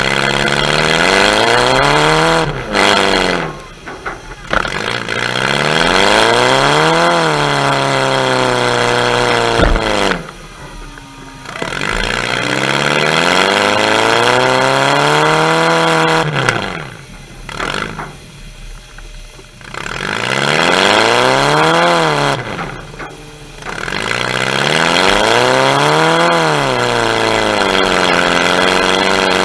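Demolition derby car's engine, heard close up from its own hood, revving up and easing back off about five times, with short lulls in between as the car accelerates in bursts.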